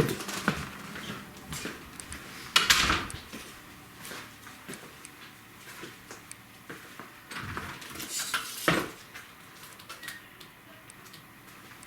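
Scattered rustles and light clicking knocks, with two louder rustling bursts about three and eight seconds in.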